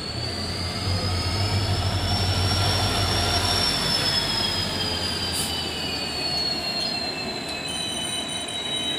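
Indian Railways passenger train rolling past, a steady rumble with a long high-pitched squeal over it that rises slightly and then slowly falls.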